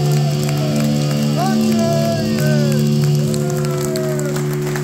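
Live gothic metal band holding one steady, sustained chord at the close of a song, with sliding high notes and a few crowd voices over it.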